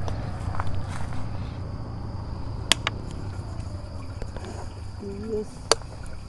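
Crickets trilling steadily in a high, thin band over a low background rumble, with two sharp clicks, one about three seconds in and one near the end.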